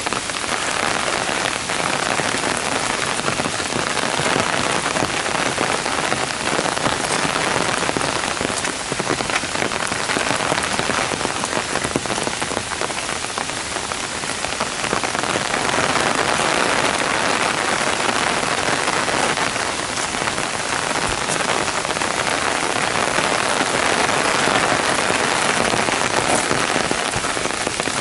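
Heavy downpour beating on a gravel path and the surrounding foliage: a steady dense hiss of rain with scattered sharper drop ticks.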